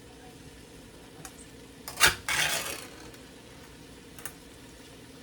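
A metal can or utensil knocks sharply once against a cooking pot about two seconds in, then clatters and scrapes briefly as canned chicken is emptied in. A couple of faint clicks come before and after.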